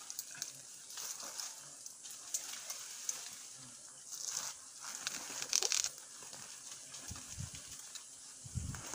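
Rustling, crackling handling noise as hands press and work a wild giant honeybee comb among the branches, with louder crinkly rustles about four and five and a half seconds in and low thumps near the end.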